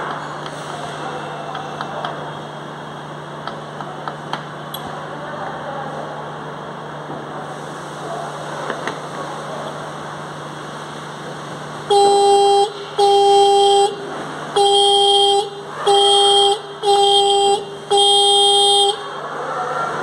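Disc-type electric car horn, held in the hand and wired straight to the car battery, sounding six short blasts of a steady tone in the second half, each under a second long. Before the blasts there are only faint clicks of the wires being handled.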